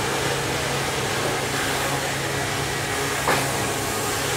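Steady machinery hum: a low droning tone under an even hiss, with one short knock about three seconds in.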